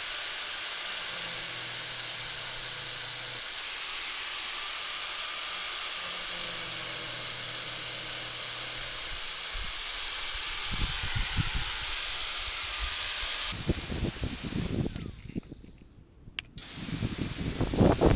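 Angle grinder with an abrasive grinding disc running while it sharpens a chainsaw chain's teeth, a steady hiss-like grinding whose tone shifts in stretches of a few seconds. It cuts out about fifteen seconds in, then wind buffets the microphone.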